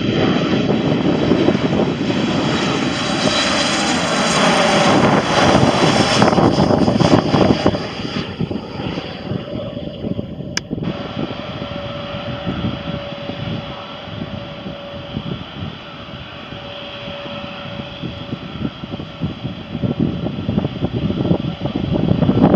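Boeing 737 jet engines on final approach passing low overhead: loud jet noise with a whine that glides down in pitch over the first several seconds. After a click about ten seconds in, the sound drops to a quieter, steady engine whine, and wind buffeting the microphone grows louder near the end.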